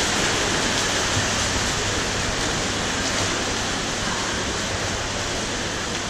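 Steady rushing of water splashed by swimming water polo players in an indoor pool hall, easing off slightly toward the end.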